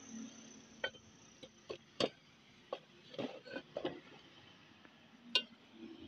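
A metal tool and small parts clinking and knocking against the aluminium crankcase of a dismantled Honda 125 motorcycle engine: about nine sharp, irregular taps, the loudest about five seconds in.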